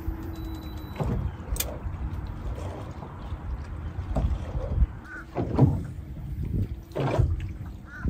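Wind and water noise around a small boat, with a few knocks on the hull. Geese start honking about five seconds in.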